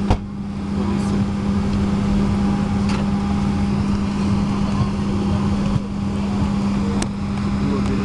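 Steady low hum and rush of air inside a Boeing 737-700's cabin, from its air-conditioning and aircraft systems running before takeoff. A sharp click comes right at the start, with a couple of faint ticks later.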